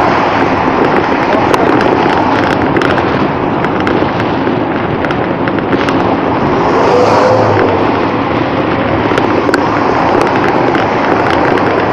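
Wind rushing and crackling over the microphone of a camera on a moving bicycle. Road traffic runs alongside, and a bus goes past about seven seconds in, briefly louder.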